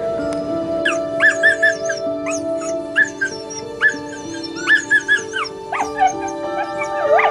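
A dog whining in repeated clusters of short, high-pitched cries that rise and fall, over soft instrumental background music with long held notes.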